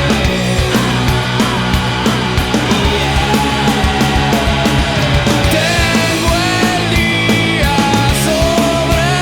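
Loud rock band music: drums, bass and guitars, with a lead melody that slides up and down in pitch.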